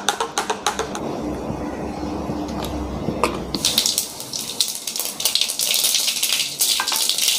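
Hot oil sizzling and crackling in a kadai on a gas stove: a bright, dense hiss full of fine pops that sets in about three and a half seconds in, after a duller rushing sound.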